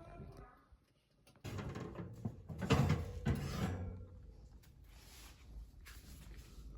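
An oven door being opened: a sudden scraping, clattering sound about a second and a half in, loudest a little later, then fading over the next couple of seconds.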